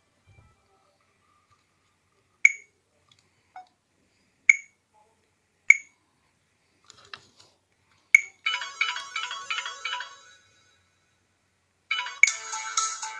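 Samsung Galaxy Ace stock ringtones playing from the phone's speaker, preceded by a few sharp clicks. One ringtone melody plays for about two seconds and cuts off. After a short pause another melody starts.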